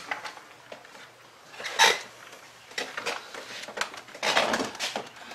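Metal hand tools and loose hardware clinking and clattering during work in a car's engine bay: scattered sharp clinks, with one louder clank about two seconds in and a busier patch of clatter near the end.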